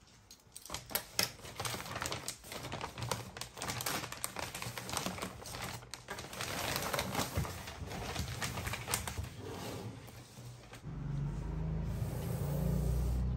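Thin plastic shopping bag rustling and crinkling in a dense run of crackles as a box is pulled out of it. About eleven seconds in this gives way to a low rumbling handling noise.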